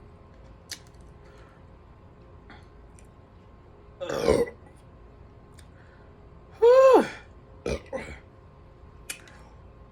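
A woman burping twice. The first burp, about four seconds in, is shorter and rougher; the second, about six and a half seconds in, is louder and longer, its pitch rising and then falling. Two short, softer sounds follow right after. The burps are brought up by the carbonated soda she is drinking with the meal.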